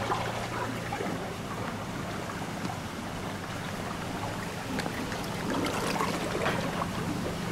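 A car engine's low steady hum under a rushing outdoor hiss, with a few faint clicks between about five and six and a half seconds in.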